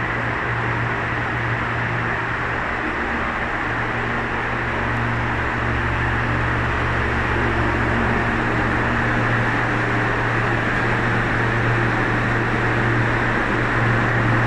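Ventilation fans running: a steady rush of air over a constant low hum.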